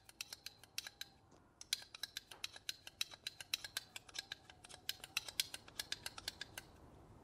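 Steel shaft of a Noctua Phillips #2 screwdriver being passed repeatedly through the slot of a Husky screwdriver magnetizer block to magnetize the tip. It makes a quick, irregular run of sharp metallic clicks, several a second, as the shaft catches and snaps against the magnets.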